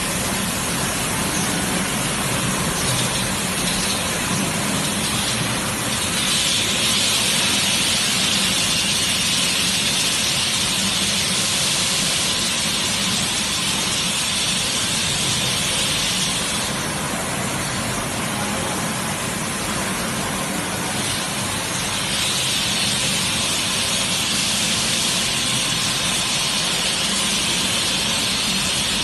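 Steady running noise of a bottled-water washing, filling and capping line and its bottle conveyors, an even mechanical rush with a hiss. A higher hiss swells twice, each time for several seconds.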